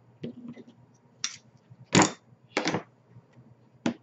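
Scissors and a bone folder being picked up and handled off a tabletop: about five short knocks and clatters, the loudest about two seconds in.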